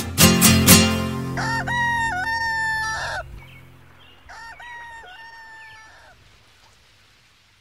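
Final strummed chords of a Chilean cueca on acoustic guitar ring out, then a rooster crows twice, the second crow quieter, and the sound fades away.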